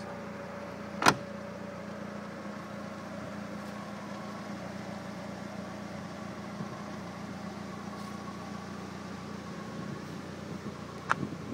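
Lancia Delta HF Integrale Evo II's 2.0-litre turbocharged four-cylinder engine idling steadily, with one sharp, loud knock about a second in and a smaller click near the end.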